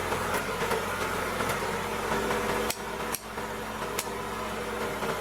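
An engine running steadily, with a few sharp knocks and a brief dip in level near the middle.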